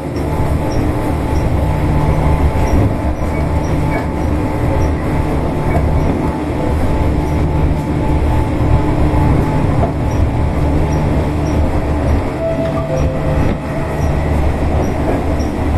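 Tobu 8000-series electric train running steadily along the line: a continuous low rumble of wheels on rail with a steady motor hum.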